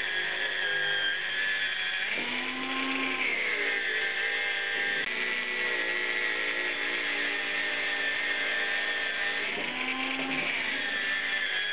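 Handheld angle grinder with a cutting disc running and cutting through a metal tube, a steady motor whine over a harsh hiss; the pitch bends twice, a couple of seconds in and near the end, as the disc is worked into the tube.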